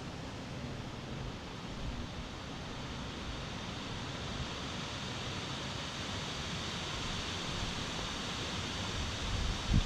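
Wind gusting through trees, a steady rush of leaves, with low wind rumble on the microphone and a short buffet near the end.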